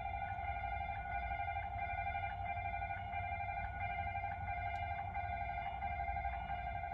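Japanese level-crossing warning bell ringing steadily, its electronic tone repeating about every two-thirds of a second over a low rumble.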